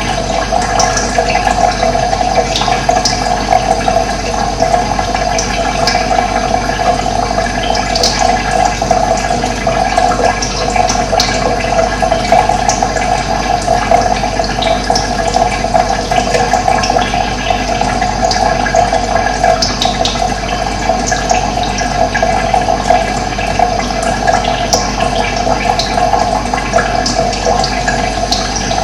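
Steady rush of running water, with short high bird chirps here and there over it.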